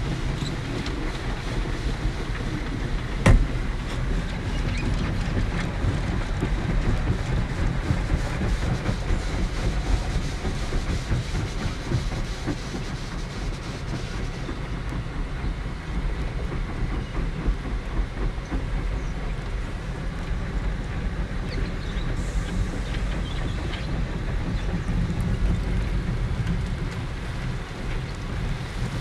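Water jets and cloth washing equipment of a Belanger tunnel car wash pounding on the car, heard from inside the cabin as a steady rushing rumble. A sharp knock about three seconds in.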